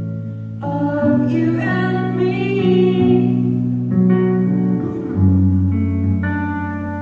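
Live band music: guitar and bass playing held chords that change every second or so, with a wordless held vocal note wavering over them about a second in.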